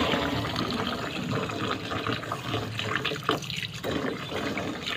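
Water pouring into a bowl of dry corn grits, filling it to wash the grits. The flow dips briefly a little past three seconds in.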